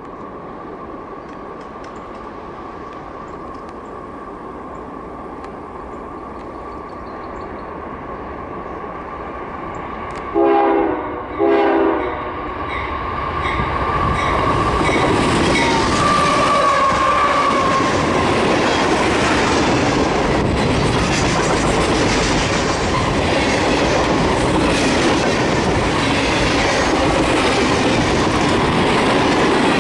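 CSX diesel freight train approaching, its rumble growing steadily louder, with two short horn blasts about ten seconds in. The locomotives then pass and the freight cars roll by, wheels clacking over the rail joints.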